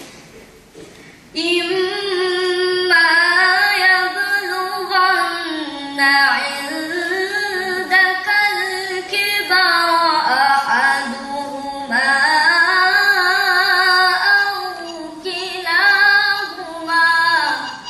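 A boy's solo voice singing unaccompanied in long melodic phrases with held, wavering notes, starting about a second and a half in after a short pause.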